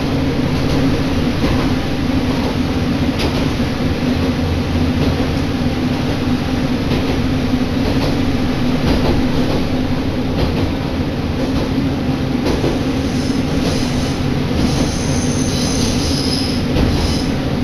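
Isumi Railway diesel railcar running, heard from inside the carriage: a steady engine and running rumble with the occasional clack of wheels over rail joints. Near the end a faint high-pitched wheel squeal comes in.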